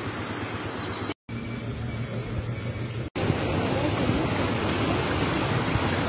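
Steady rushing noise of fast-flowing brown floodwater, broken twice by a split second of silence, about a second in and about three seconds in, and louder after the second break.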